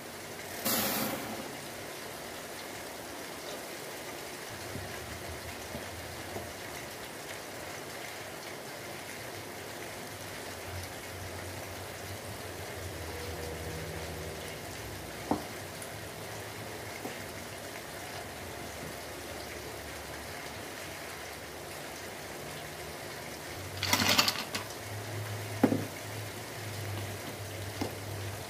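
Milk simmering and boiling in a stainless steel saucepan on an electric hot plate: a steady hiss, with a few sharp clinks of a spoon against the pot, the loudest two about three-quarters of the way through.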